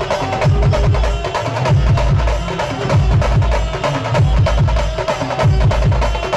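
Maharashtrian banjo-group band music: fast, dense drumming with heavy, repeated bass beats under a sustained melody line, played loud through a sound system.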